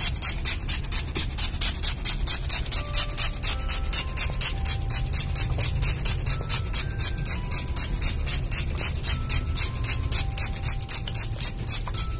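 Hand trigger spray bottle pumped rapidly, about five hissing squirts a second, misting liquid onto chili plant leaves to treat them against pests.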